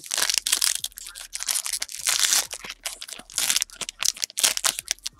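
Foil-lined wrapper of a 2017-18 Panini Prestige basketball card pack being torn open and peeled back by hand: a run of loud, irregular crinkling and tearing that stops near the end.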